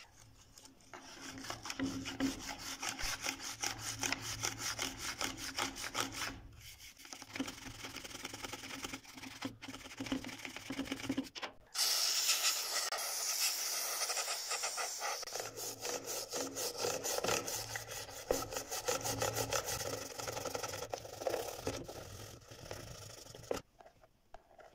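A toothbrush scrubs quickly back and forth over the grimy push-button switch contacts of a blender base, with a short pause partway through. About twelve seconds in, an aerosol can sprays a cleaner onto the switch through its straw nozzle, giving a few seconds of steady hiss. More rapid rubbing follows, then it stops near the end.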